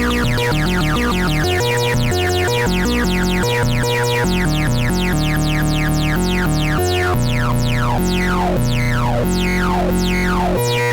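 Dreadbox Hades analog bass synthesizer playing a fast run of stepped low notes. In the second half, many notes end in a quick falling sweep.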